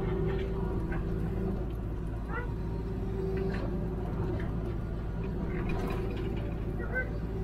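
Hitachi Zaxis 210W wheeled excavator's diesel engine running steadily with its hydraulics working, heard from inside the cab. A few short, high squeaks and ticks sound over the engine.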